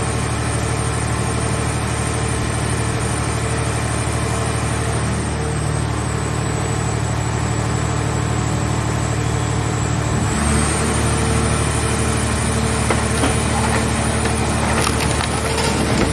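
Hydraulic car baler's power unit running steadily with a hum and a faint high whine; its tone and load change about ten seconds in. Scattered sharp knocks come near the end.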